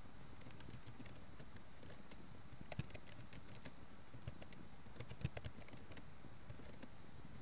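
Computer keyboard keystrokes as someone types, in short irregular bursts of clicks over a steady background hiss.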